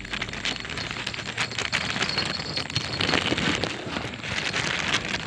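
Plastic bag crinkling and rustling in irregular crackles as freshly caught fish are moved about inside it.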